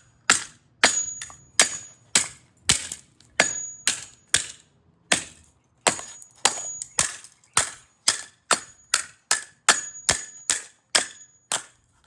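A hammer smashing a pair of plastic headphones, with a rapid run of sharp strikes, about two to three a second, and a short pause about five seconds in.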